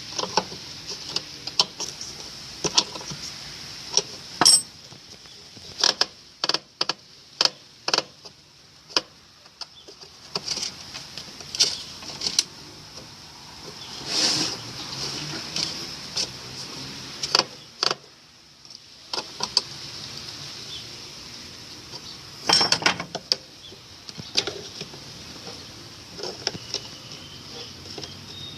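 Irregular metallic clinks and knocks, some in quick clusters, as washing-machine parts and tools are handled during reassembly, over a steady faint hiss.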